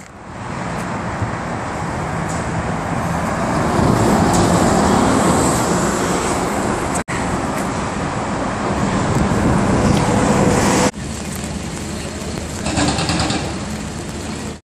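Articulated trolleybus driving on the street, heard as a steady rush of tyre and road noise that swells as it comes close. The sound cuts briefly about seven seconds in and drops suddenly about eleven seconds in, where the shot changes.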